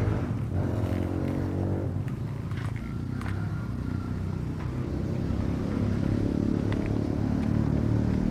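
A small engine running nearby, its pitch falling over the first two seconds and rising again near the end, with a few light clicks over it.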